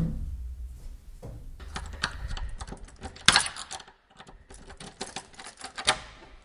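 A quick run of sharp clicks and rattles, like small objects being handled, with a louder knock about three seconds in and another near the end.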